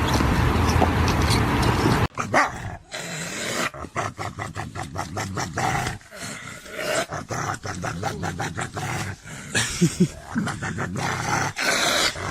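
A steady loud rumble for about two seconds, then a dog barking and growling with many short, sharp sounds.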